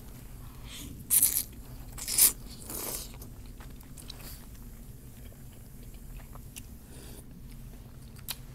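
Close-up mouth sounds of eating noodles from chicken noodle soup: three loud wet slurps in the first three seconds as the noodles are drawn in, then softer chewing with small clicks.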